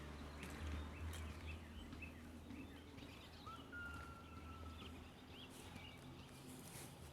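Faint outdoor ambience: small birds chirping, with one held whistled note about halfway through, over a low steady hum.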